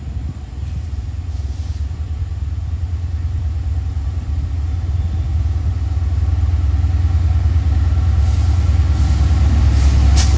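Low, heavy rumble of an approaching train, growing steadily louder.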